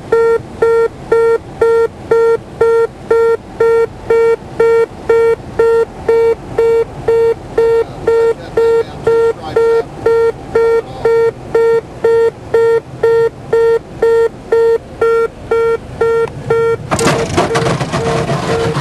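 Cessna's landing-gear warning horn beeping steadily, about two and a half beeps a second, sounding because the gear is still retracted on approach. About 17 seconds in, a sudden loud scraping rush begins as the aircraft's belly meets and slides along the runway, with the warning beeps still going under it.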